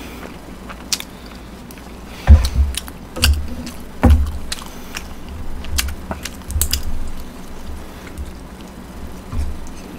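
A person eating close to a microphone: chewing, with several dull low thumps, the strongest two to four seconds in, and scattered sharp clicks from handling chopsticks and spoons.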